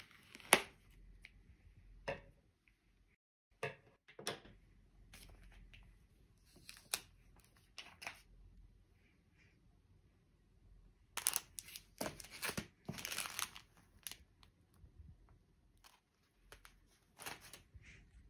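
Handling noises in a small room: scattered sharp clicks and short rustling or scraping bursts, with a denser run of them about two-thirds of the way through.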